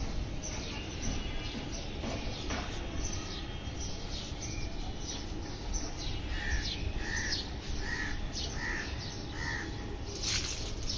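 Outdoor birds calling: many quick falling chirps throughout, and midway a run of five short, evenly spaced calls about two-thirds of a second apart. A brief noisy burst comes near the end, over a steady low rumble.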